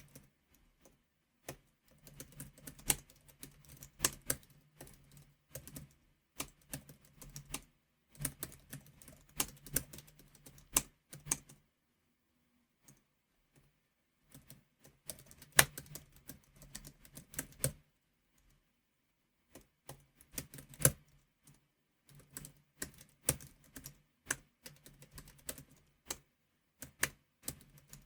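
Computer keyboard being typed on firmly in bursts of fast keystrokes, with pauses of a second or more between bursts. Now and then a single key is struck much harder than the rest.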